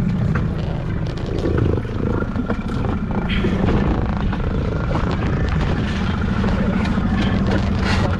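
Boat engine running steadily at low speed, with a few light knocks over it.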